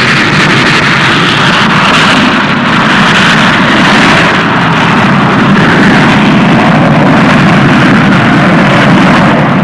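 A loud, steady rushing roar of machinery with no clear pitch and no breaks.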